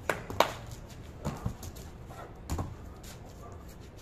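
A large Great Dane's paws thumping and scuffing on a concrete rooftop as it jumps and lands: a handful of short knocks in the first three seconds, the loudest about half a second in.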